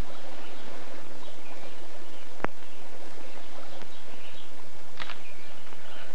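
Steady low hum and hiss from the videotape soundtrack, with faint scattered high chirps and a single sharp click about two and a half seconds in.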